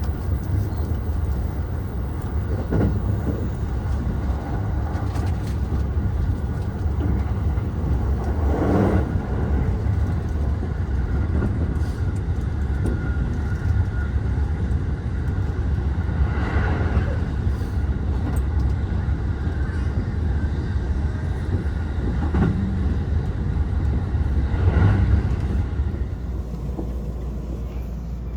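Joban Line commuter train running, a steady low rumble of wheels on rail with a few louder swells now and then, easing a little near the end.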